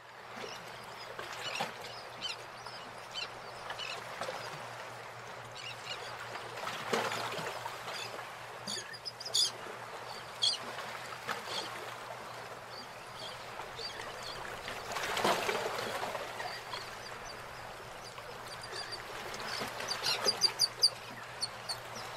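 A herd of white goats on the move over sandy ground: a steady shuffle of many hooves, with occasional animal calls and short runs of high chirps, once about nine seconds in and again near the end.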